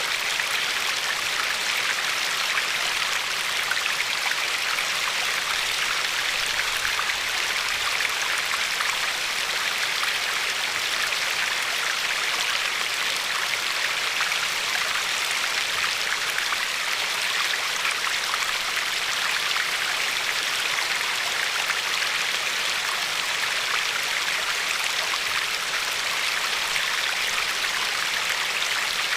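River water flowing and lapping over a pebbly shore, a steady even rush.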